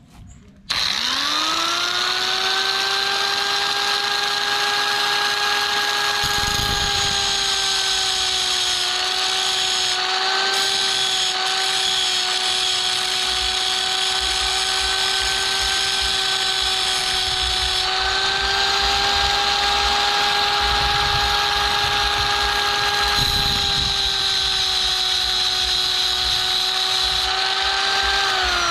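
Electric angle grinder with a cutting disc switched on, spinning up to a steady whine and grinding into a stainless steel rod to cut the barb of a homemade fishing hook; the pitch sags a little a few times under load. Switched off near the end, its whine falling as the disc winds down.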